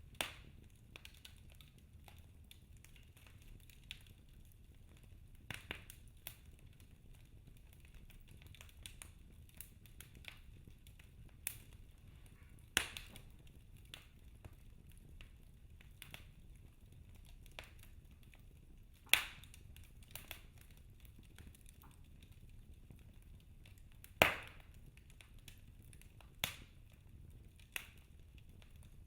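Wood fire in a fireplace crackling: scattered small clicks and sharp pops, with three louder pops spread through.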